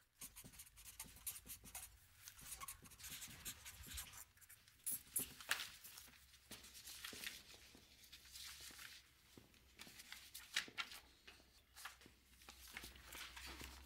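Red felt-tip marker scratching on paper in many short, faint strokes as test papers are marked, over a low steady room hum.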